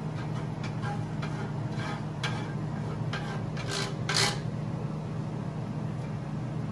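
Wooden spatula scraping and rubbing butter across a ridged nonstick grill pan, in small strokes with two louder scrapes a little under four seconds in, over a steady low hum.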